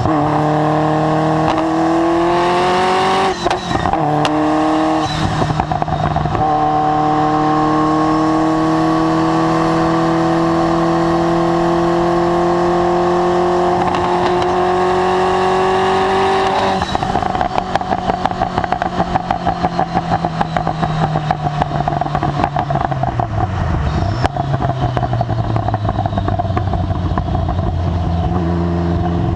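Ferrari F40's twin-turbo V8 with a Tubi Style exhaust accelerating, its pitch rising through two quick upshifts and then one long pull in a gear. About seventeen seconds in it comes off the throttle: the exhaust breaks into a rapid stutter of pops while the revs drop through downshifts. It picks up again near the end.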